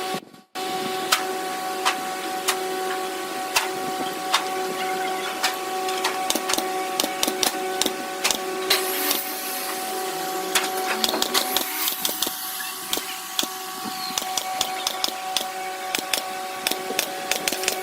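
A small electric machine running with a steady hum, with frequent irregular sharp clicks and taps over it.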